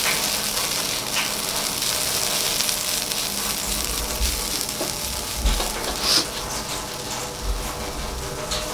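Shredded rubber tree leaves and anchovies sizzling steadily as they stir-fry in a wok, turned over with a spatula. A few dull low thumps come through around the middle.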